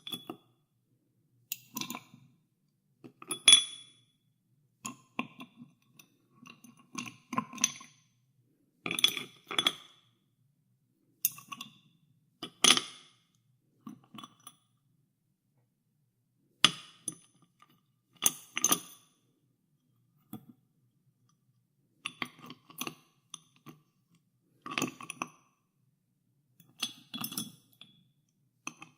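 Ice cubes in a glass of sparkling water being stirred, clinking against the glass in irregular clusters every second or two with brief ringing.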